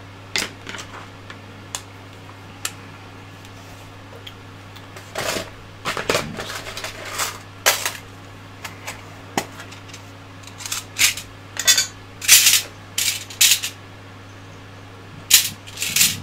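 Hard 3D-printed plastic parts and metal hand tools clicking, knocking and scraping on a workbench as they are handled, in irregular clusters over a steady low hum.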